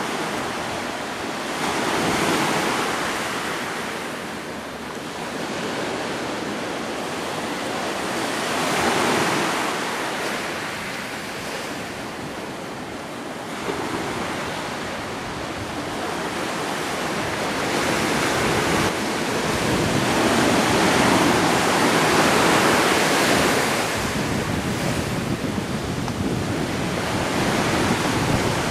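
Ocean surf breaking and washing up a pebble-and-rock shore, the rush of noise swelling and fading with each wave every several seconds.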